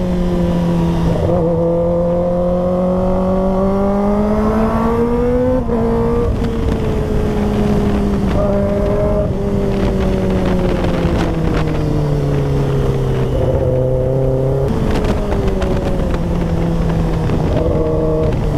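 Kawasaki ZX-10R's inline-four engine under way on the road: the engine note rises as the bike accelerates through the first few seconds, then falls gradually with a few small steps as it slows.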